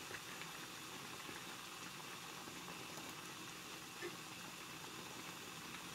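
Pot of water at a steady rolling boil with eggplant slices in it, a low, even bubbling hiss. A faint tap sounds about four seconds in.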